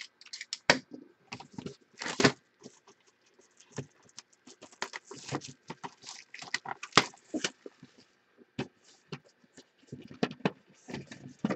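Cellophane shrink-wrap crinkling and tearing as it is peeled off a hinged cardboard trading-card box, in short irregular crackles, with the box's cover being opened near the end.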